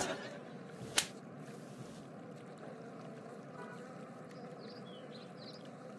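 Faint, steady background hiss of outdoor scene ambience, with a single sharp click about a second in.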